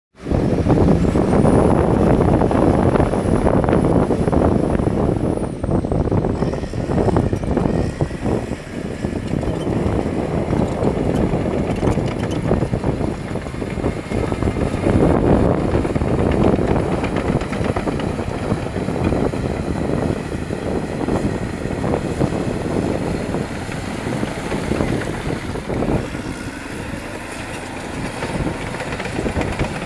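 Caterpillar D6R LGP crawler dozer working, its diesel engine running under load with the clatter of steel tracks as it pushes stone. The sound is continuous and loud, swelling and easing as the load changes.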